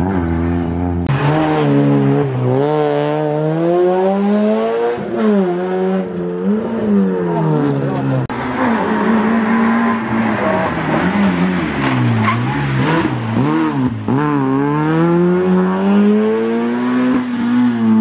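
Rally car engines revved hard, pitch climbing and dropping again and again as the drivers accelerate, shift and lift through a tight hairpin. From about 8 s on the engine is a Peugeot 106 rally car's.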